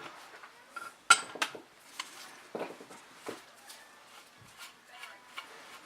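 Irregular light metallic clicks and clinks of a valve spring compressor tool being handled and fitted onto a cylinder head, loudest about a second in.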